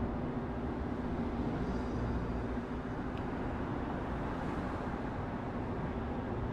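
Steady urban night ambience: a low, even rumble of distant traffic with a faint hum underneath.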